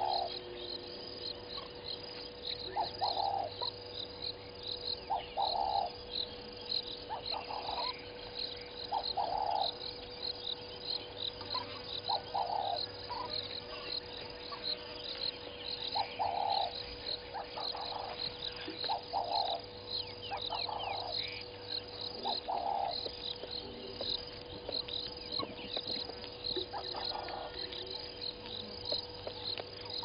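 Bushveld morning ambience: an insect chirping steadily at a high pitch in an even rhythm, with short lower calls repeating every second or two and a few quick bird chirps. A faint steady hum runs underneath.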